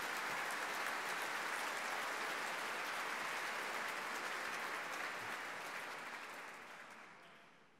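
An audience applauding, a dense patter of many hands clapping that fades away near the end.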